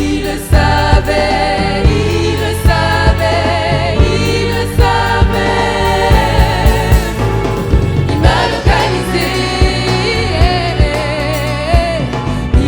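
Gospel music with several voices singing together over bass and a steady beat.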